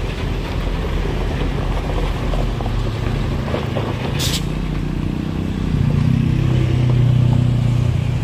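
A truck engine running with a steady low drone, which swells louder from about six seconds in. A short hiss sounds about four seconds in.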